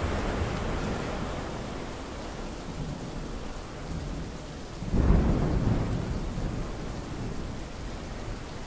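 Stormy-sea ambience recording: a steady rushing storm noise, with a sudden loud deep rumble about five seconds in that dies away over a couple of seconds.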